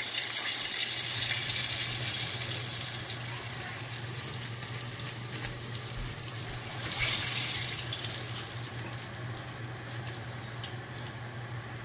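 Hot frying oil sizzling in a pot as fried whiting pieces are lifted out. The hiss fades and swells again about seven seconds in, over a steady low hum.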